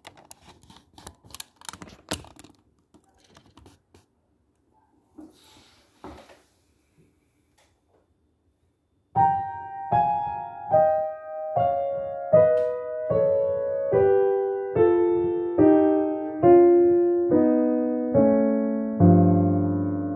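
Clicks and knocks of a phone being handled and set in place. From about nine seconds in, a piano plays a falling melody of single notes, a little over one a second, ending on a held low chord.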